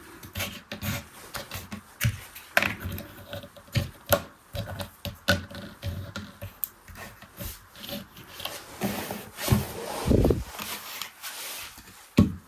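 Small hard objects being handled: irregular clicks, taps and rubbing, with a louder dull knock about ten seconds in, typical of a small manual toy washing machine being worked by hand.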